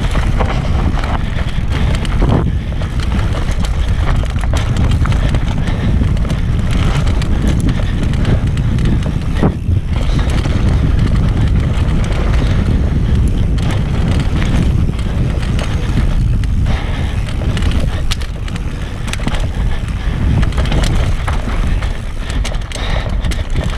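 Wind noise on an action camera's microphone during a fast mountain-bike descent on a Transition Patrol, with the tyres running over dry dirt and the bike clattering over bumps in many short knocks.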